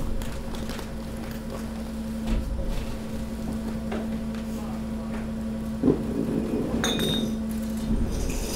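Steady hum of a hydraulic garbage press's pump while the ram compacts waste, with scattered cracks, knocks and clinks of rubbish shifting and being crushed. The hum stops near the end.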